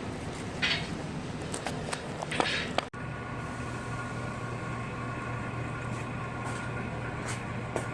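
A car's steady mechanical running hum, with a few short hisses in the first seconds. After a sudden cut about three seconds in, the hum becomes steadier, with a low drone and several even high tones.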